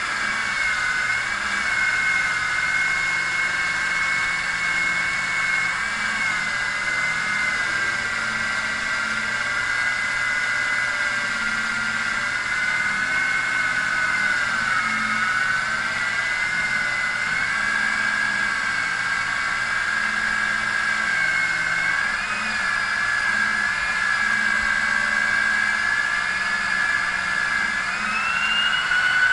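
A machine motor running with a steady high-pitched whine, wavering slightly in pitch and rising briefly near the end.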